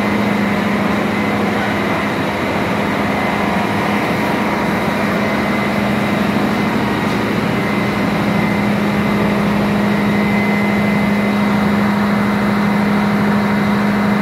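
Ship's engine-room machinery running steadily and loudly, with a strong low hum that holds one pitch throughout.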